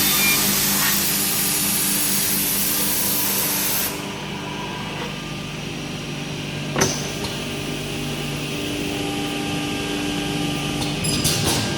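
Woodworking machinery running in a cabinet workshop with a steady hum. A loud hiss during the first four seconds cuts off suddenly, and there is a single sharp knock about seven seconds in.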